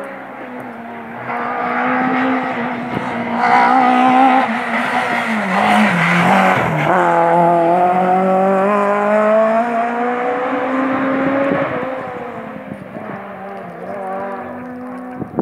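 A rally car's engine at full race pace coming up to a hairpin. Its pitch drops as it slows for the bend around the middle, then climbs steadily as it accelerates out and fades away near the end.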